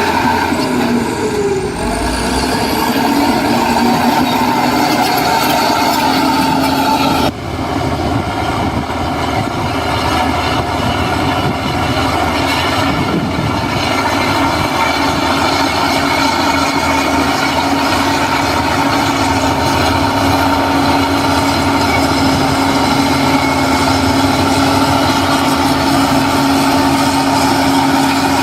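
Heavy diesel earthmoving machinery running steadily, with a steady whine over the engine noise. There is a sudden short drop about seven seconds in.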